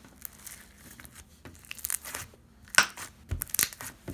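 Slime being squeezed and worked by hand, giving sticky crackling and small popping clicks. The crackles come in uneven clusters, with the sharpest pop just before three seconds in.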